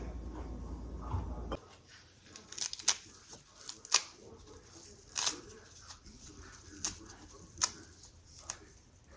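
Scattered sharp knocks and clicks of kitchen food preparation on a counter, at uneven intervals. A low hum stops about a second and a half in.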